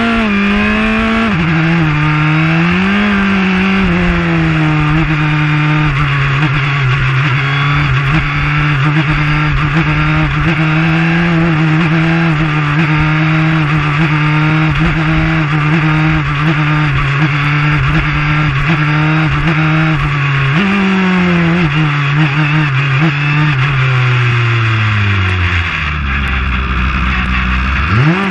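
JAF-F4 formula car's engine heard from the cockpit, running under load. Its revs climb twice at first, then hold nearly level for a long stretch before falling away over several seconds to a low note, and they rise sharply again at the very end. Steady rushing noise from wind and heavy rain spray lies under the engine.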